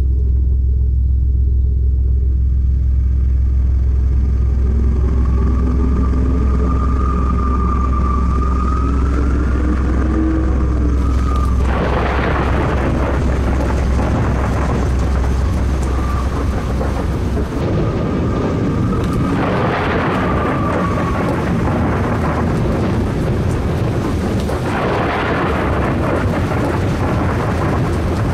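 A deep steady rumble with faint wavering tones over it gives way to thunder: three long claps, the first about halfway through, then two more some seconds apart, with a steady rain-like hiss between them.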